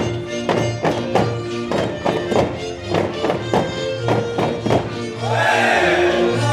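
Hungarian folk dance music playing, with a steady beat of sharp knocks about two or three a second. Near the end a group of voices comes in over the music.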